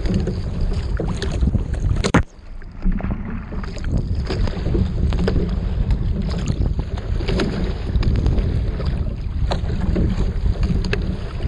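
Wind buffeting the microphone while choppy whitecap waves slap and splash against the bow of a Peinert X25 racing shell being sculled through rough water. About two seconds in, one loud splash hits, and then the sound drops away sharply for about a second before the wind and water noise return.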